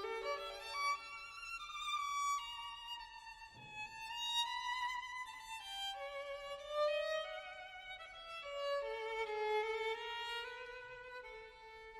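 Background music: a solo violin playing a slow melody with vibrato.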